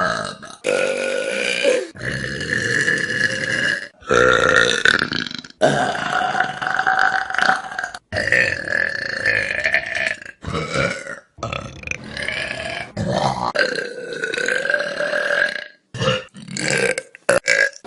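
A string of long, drawn-out human belches, one after another, each lasting a second or two and mostly holding a steady pitch. They stop abruptly at hard cuts between clips, several of them.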